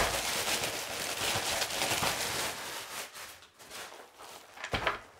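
Plastic courier mailer bag crinkling and rustling as it is handled, most strongly in the first three seconds, then quieter, with one short knock near the end.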